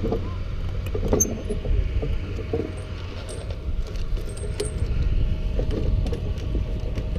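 Wind rumbling on the microphone, with scattered light clinks and knocks as the porcelain suspension insulator string and metal rigging hardware (block, carabiners, chain) are handled on the rope.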